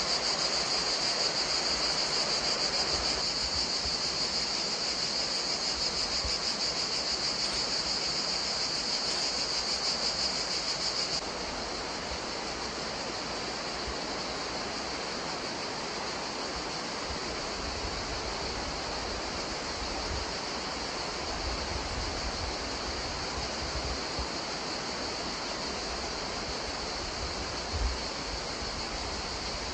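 A steady, high-pitched insect chorus over a faint outdoor hiss. About eleven seconds in the insects drop to a fainter level.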